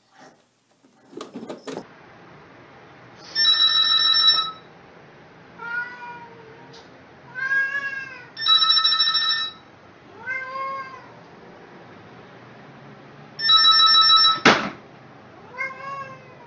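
A telephone rings three times, each ring about a second long and about five seconds apart, and a domestic cat meows in the gaps between the rings, four rising-and-falling meows. A sharp click comes just after the third ring.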